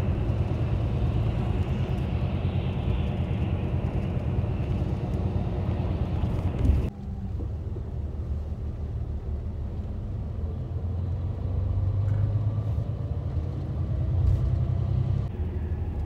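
Steady low rumble of a highway bus's engine and road noise heard from inside the cabin. About seven seconds in there is a brief thump, then the sound drops suddenly to a slightly quieter rumble of the same kind.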